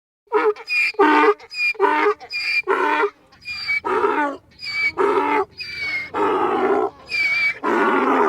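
Donkey braying: a long run of about a dozen hee-haw calls in quick succession.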